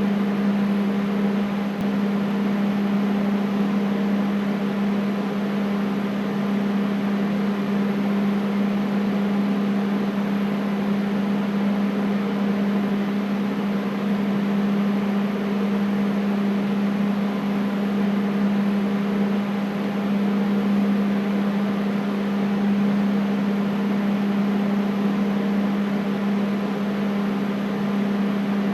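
Air conditioner running steadily: an even rush of air over a constant low hum.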